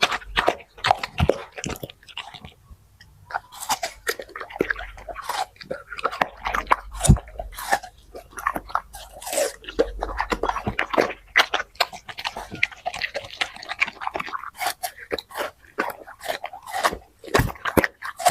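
A dog chewing and crunching food, with dense, irregular bites and a short lull about two to three seconds in.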